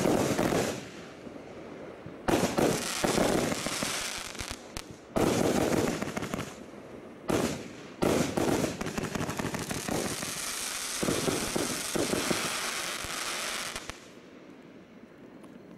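Bright Star Vindicator 72-shot firework barrage firing: sudden loud reports every second or two over a continuous dense crackle from the bursting stars. The crackle drops away about two seconds before the end.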